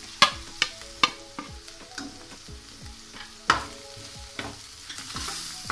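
Steel spoon clinking sharply several times in the first second and a half, and once more about three and a half seconds in, as ground spices are scraped into an aluminium pot and stirred. Under it, onions and green chillies sizzle as they fry in oil.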